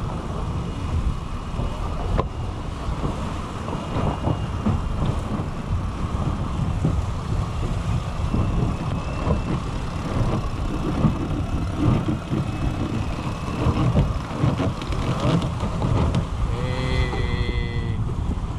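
Wind buffeting the microphone on a sailing catamaran under way, with water rushing along the hulls. There is a brief high squeal near the end.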